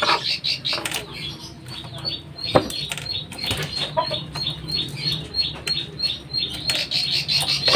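Metal clinks and rattles as the cam chain of a Honda Supra X engine is worked loose and pulled out by hand and with a screwdriver. A rapid high chirping, about four a second, runs through the middle.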